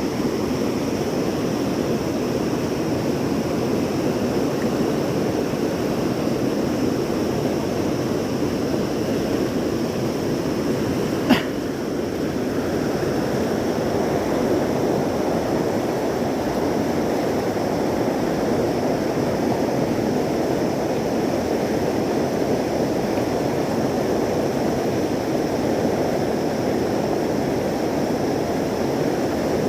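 Steady rush of a mountain stream flowing over rocks, with a single sharp click about eleven seconds in.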